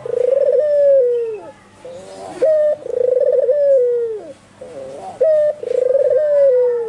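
White albino barbary dove (puter) cooing over and over: three full coos about two seconds apart, each opening with a few short wavering notes and ending in a long rolling note that falls in pitch.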